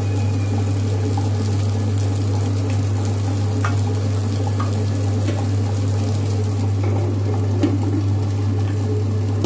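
Tabletop wet grinder running: its stone rollers turn in the steel drum, grinding soaked rice, urad dal and flattened rice into dosa batter, with a steady, even hum.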